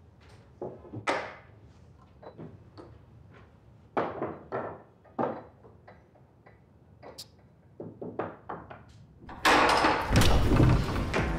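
An irregular string of light knocks and clunks, as of objects being handled and set down. Music comes in loudly about nine and a half seconds in.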